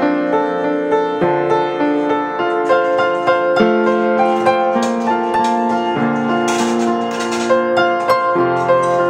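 Calm background piano music, a slow melody of held notes over sustained chords.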